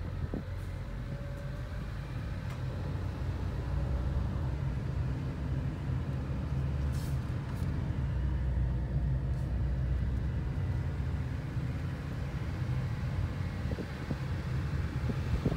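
Steady low rumble of a car driving, heard from inside the cabin: engine and road noise, swelling a little and easing off as the car travels.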